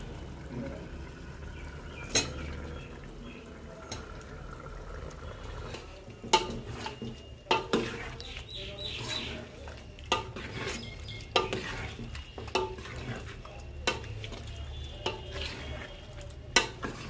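Metal spoon stirring chicken masala in a metal pot, scraping and clinking against the sides, with sharp clinks about once a second from about six seconds in. A steady low hum lies underneath.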